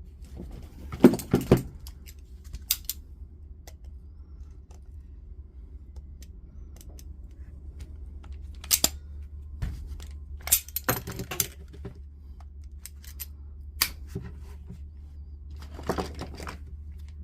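Scattered metal clicks and short clatters of tools and small parts being handled while the multi-tool's blade holder nut is fitted, over a steady low hum.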